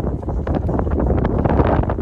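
Loud, gusty wind buffeting the microphone in a snowstorm.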